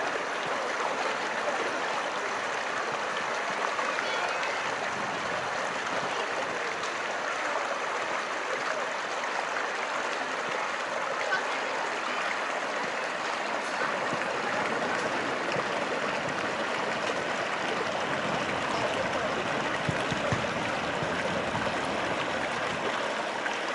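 Shallow stream water running over a low line of stones, a steady rushing and splashing.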